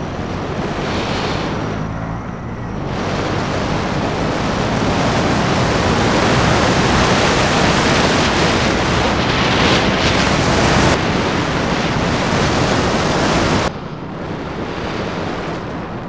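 Wind rushing over the microphone of a moving motorcycle, with the engine running underneath. The rush builds over several seconds and then drops suddenly near the end.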